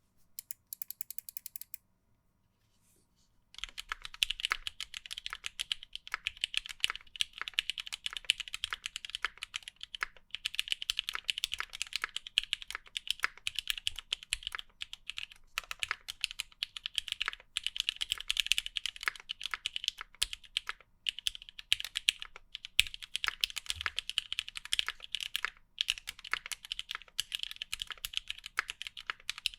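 Typing on a custom mechanical keyboard with linear NOS Cherry MX Black switches in an o-ring-mounted Monokei Kei R2 case: a steady stream of quick keystrokes with short pauses, starting about three and a half seconds in. A short high-pitched sound comes before it in the first couple of seconds.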